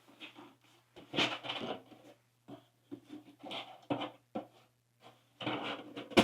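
Packaging for a computer being handled: short bouts of scraping and rubbing, with one sharp click near the end.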